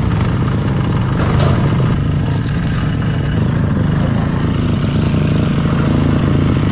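A motor or engine running steadily with a low drone and a light clatter.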